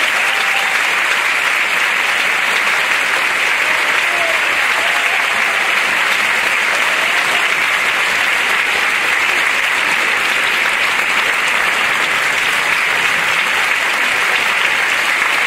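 Theatre audience applauding steadily, a dense continuous clapping at an even level.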